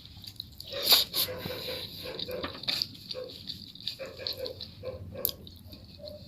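Close-miked eating sounds: wet chewing and mouth smacks in a rapid, irregular series, with a louder sharp smack about a second in.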